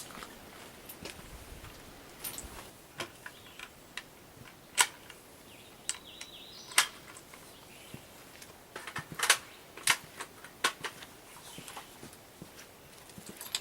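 A scattering of sharp clicks and clacks, a dozen or so spread over the stretch, the loudest about five, seven and nine seconds in. These are typical of a just-cleared rifle and range gear being handled.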